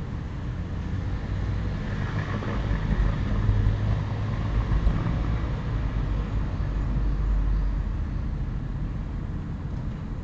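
Low rumble of a road vehicle going by, swelling about three seconds in and fading slowly toward the end.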